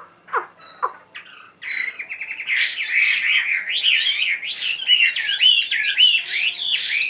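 Wild-caught Chinese hwamei, a week in the cage, singing. It gives a few short down-slurred calls, then a quick run of repeated notes, which about two and a half seconds in builds into a loud, continuous, varied song of gliding whistled phrases.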